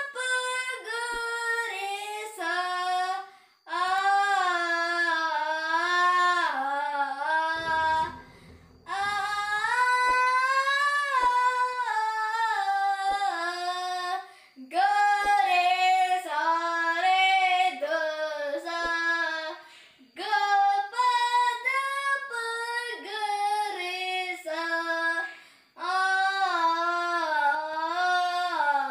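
A boy sings a Kannada song solo, unaccompanied, in long melodic phrases with short breaths between them.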